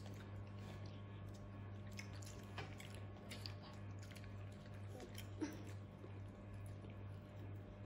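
Quiet eating at a table: spoons scraping and tapping in plastic cups of ice cream and bubble tea, with a few faint clicks and some chewing, over a steady low electrical hum.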